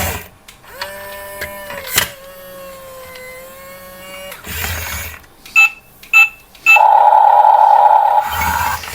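Toy RC construction vehicle: a held electronic tone and two short beeps, then its small electric motors and gearboxes start a steady whirring from about seven seconds in.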